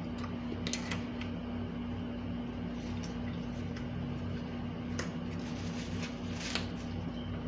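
Steady low electrical hum of a room appliance, with a few soft rustles and clicks from food and a paper napkin being handled about a second in and again near the end.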